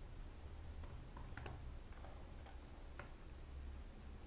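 Faint, scattered keystrokes on a computer keyboard as text is typed, heard over a low steady hum.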